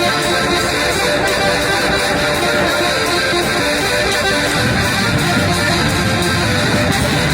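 A rock band playing live without vocals, led by strummed electric guitar. The low end fills out about four and a half seconds in.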